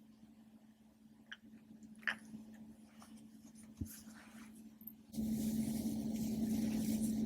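Popper toy being handled close to the microphone: a few faint clicks and pops, then from about five seconds in a loud continuous squishing, rubbing noise, over a steady low hum.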